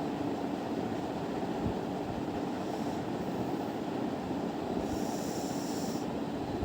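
Electric fan running: a steady whirring noise with a constant low hum. About five seconds in, a brief higher hiss lasts for about a second.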